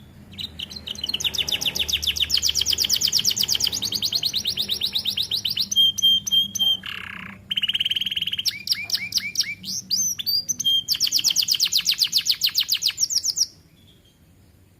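Young domestic canary singing a long song of fast trills, with a few short held whistles and a lower buzzy note partway through. The song stops near the end.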